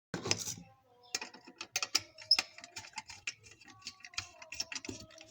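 Quick, irregular small clicks and taps, several a second, with a denser cluster of knocks just after the start.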